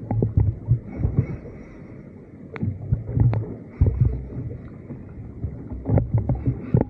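Wind buffeting the microphone and water slapping a small boat's hull, with uneven low thuds and two sharp knocks near the middle.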